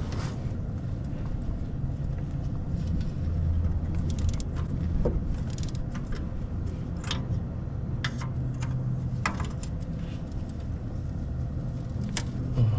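Scattered sharp metallic clinks and taps of hand tools and parts during exhaust manifold work, over a steady low hum.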